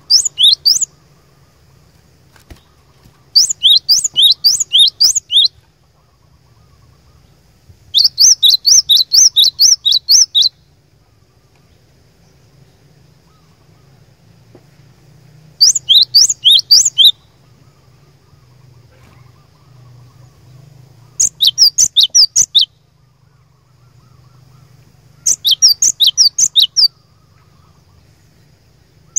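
Cinereous tit (glatik batu) singing: six phrases, each one to two and a half seconds of rapid repeated high notes, about three a second, each note sliding down in pitch, with pauses of a few seconds between phrases.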